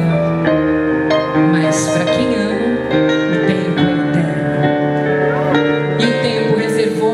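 Soft background music led by piano, with long held notes and no singing.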